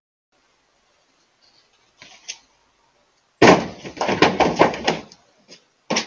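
A deer's hooves knocking and scrambling on a pickup truck's metal bed: a loud thump about three and a half seconds in, a quick run of knocks for about a second and a half, then two more knocks near the end.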